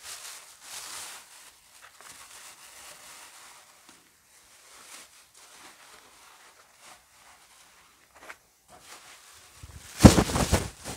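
Clear plastic sheeting rustling and crinkling as it is pulled off a stack of foam packing blocks, with a much louder crumple of the plastic close by near the end.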